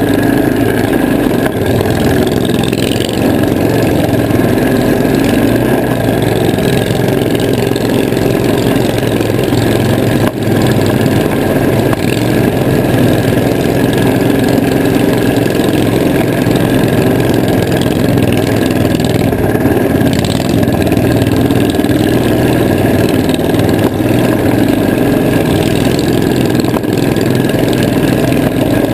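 Engine of a vintage 1970 Hustler 6x6 ATV running steadily under way, loud and unbroken.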